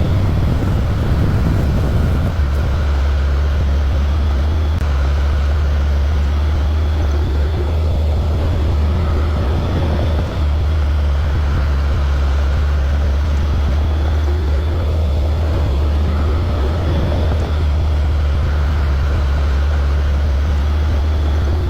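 Excavator engine running steadily under load, a constant low drone.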